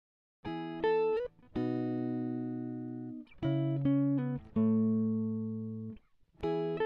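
Background music: a clean-toned guitar playing slow held notes and chords, starting about half a second in after a moment of silence.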